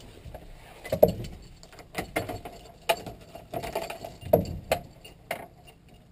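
Scattered knocks, clicks and rustles of someone climbing into a VW T3 van's cab and handling the keys and controls, with the engine not yet running.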